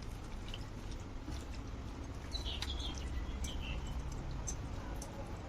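A bird chirps several times, briefly, about halfway through, over a low steady hum and faint scattered clicks.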